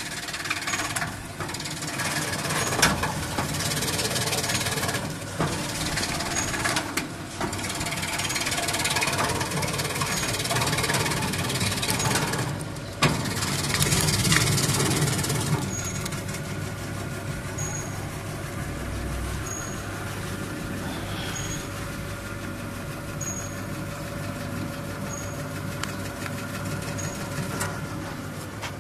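Electric diagonal vegetable slicing machine running, its motor humming steadily as vegetables are cut into slices. The cutting noise is loud and busy through the first half and eases about halfway, leaving the machine running more quietly.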